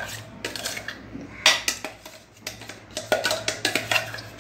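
Metal spoon scraping and clinking against the inside of a steel mixer-grinder jar as thick ground coconut paste is scraped out. The strokes come irregularly, with a sharp clink about a second and a half in and a quick run of them near the end.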